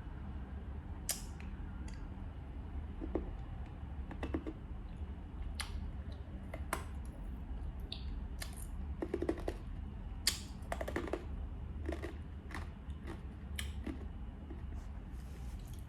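Eating sounds: irregular sharp clicks and crunches, some closely bunched, over a steady low hum.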